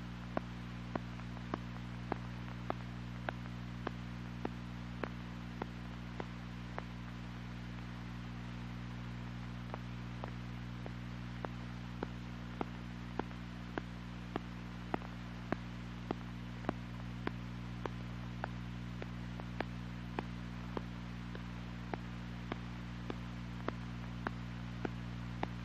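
Steady electrical hum with hiss on an old film soundtrack, with faint sharp clicks repeating evenly, about three every two seconds.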